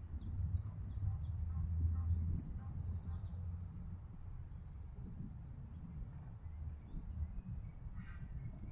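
Small songbirds chirping, with one bird giving a rapid, even trill about five seconds in, over a low steady rumble.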